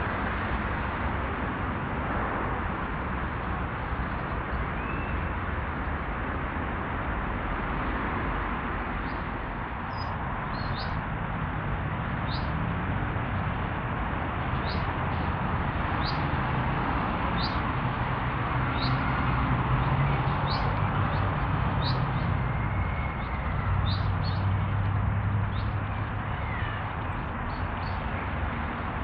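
A small bird chirping repeatedly, short sharp high notes about once every second or so from about a third of the way in, over a steady outdoor rumble and hiss.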